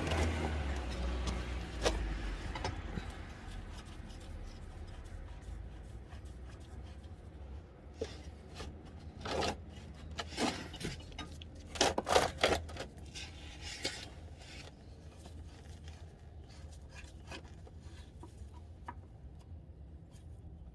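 Scattered rubbing, scraping and light clinks of a filter wrench and parts while a car's oil filter housing is unscrewed and worked off. The noises come in short clusters, busiest from about eight to fourteen seconds in, over a low steady hum.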